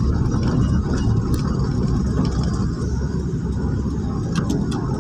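Steady low rumble of a car driving on a rain-wet road, heard from inside the cabin. A few faint ticks come near the end.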